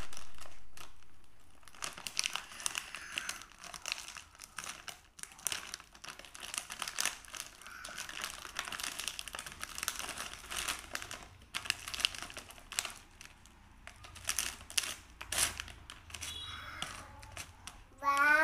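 Plastic wrapper of a cracker pack crinkling and rustling in irregular bursts as small hands tear it open and pull the crackers out. A pitched voice starts right at the end.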